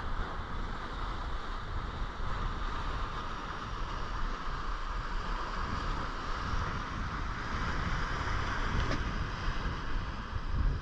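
Wind rumbling on the microphone over a steady wash of sea surf breaking on rocks.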